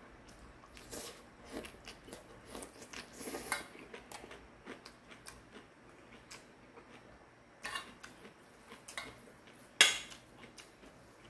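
Eating bibim-guksu noodles from a stainless steel bowl: a metal utensil scrapes and clicks against the bowl amid soft chewing, with one sharp, much louder clink of metal on metal near the end.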